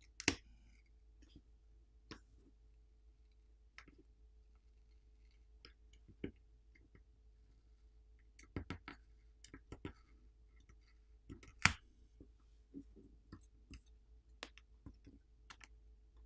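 Faint, scattered clicks and ticks of fingers working a smartphone's internals as a glued-down charging-port flex cable is peeled up, with one sharper click a little past the middle. A faint steady hum lies underneath.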